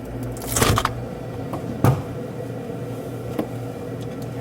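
A brief rustling clatter about half a second in, then a sharp knock nearly two seconds in and a lighter click later, over a steady low hum.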